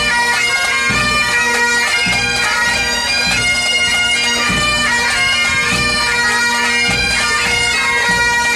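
Pipe band playing: several Highland bagpipes sound a melody over their steady drones, with a bass drum beating about once a second.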